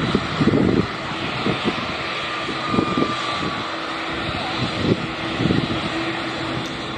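Fixed-wing aircraft engines running loud: a dense rushing noise with one steady low hum beneath it. Irregular low thumps from wind buffeting the microphone run through it.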